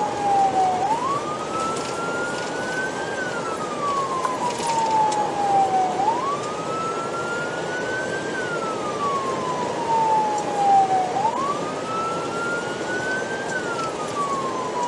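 Police car siren in a slow wail, rising and falling about every five seconds, three times through, over the patrol car's road noise, heard from inside the cabin. It signals the car running on an emergency response.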